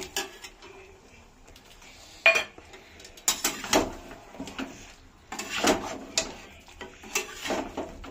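A metal spatula knocking, scraping and clattering against a metal kadhai as chicken pieces in masala are stirred: a sharp knock about two seconds in, then three bursts of stirring.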